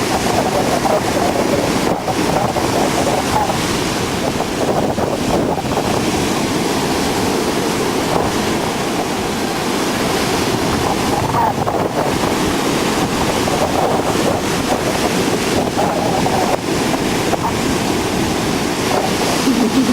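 Rough, storm-driven ocean surf breaking and washing in a steady, loud roar, with strong wind buffeting the microphone.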